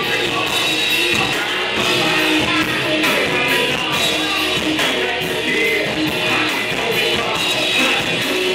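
Live rock band playing loud: a steady drumbeat with cymbals, electric guitar and vocals over the PA.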